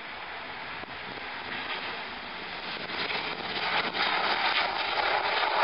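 Airbus A330-200's Pratt & Whitney PW4168 turbofan engines at takeoff thrust during the takeoff roll and rotation: a steady rushing jet noise that grows clearly louder about three seconds in as the airliner lifts its nose.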